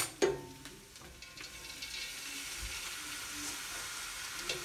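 Two sharp clinks of a metal bowl against the pot right at the start, then a steady sizzle that builds about a second and a half in as soaked green lentils land on grated vegetables frying in oil.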